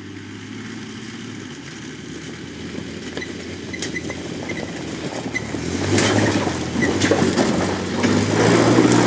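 1995 Chevy Blazer's 4.3-litre V6 engine running as the SUV climbs a rocky trail, growing steadily louder as it comes closer. From about six seconds in, stones and gravel crunch and knock under the tyres.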